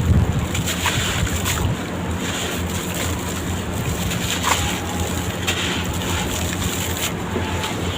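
Sand-cement block crumbling apart in water: a steady watery wash with a few faint crackles.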